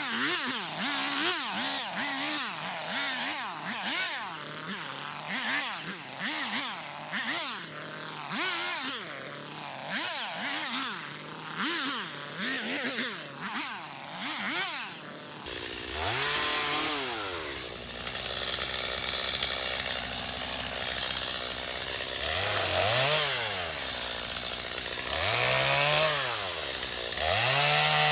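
Stihl MS250 two-stroke chainsaw revved up and down over and over as it cuts brush and small trees. For the first half the rev cycles come very quickly, about two a second, as in sped-up time-lapse audio. About halfway the sound changes abruptly to slower, lower rev cycles, one every second or two.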